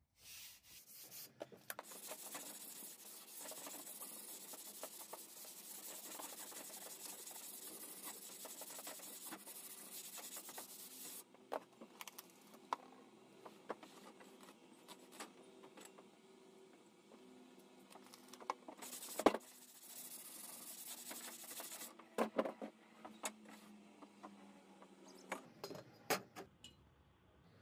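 Sandpaper rubbed along a rusty, pitted steel crosscut saw blade: a steady scratchy rubbing that drops off about eleven seconds in and comes back briefly later. Scattered sharp clicks and knocks come in between, the loudest one a little before the rubbing returns.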